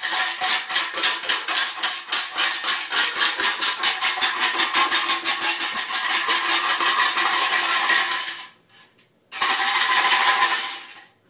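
A loud, rapid rattle, about six pulses a second, which breaks off for about a second near the end and then starts again briefly.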